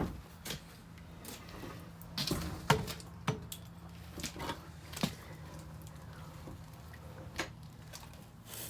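Scattered clicks and knocks of equipment being handled, the sharpest a little under three seconds in, over a low steady hum.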